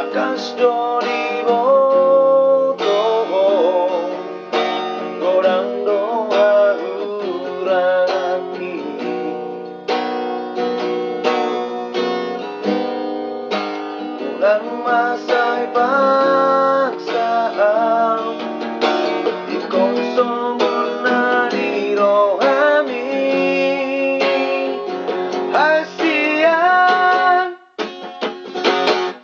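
Acoustic guitar playing a song, strummed chords and picked notes, with a brief break near the end.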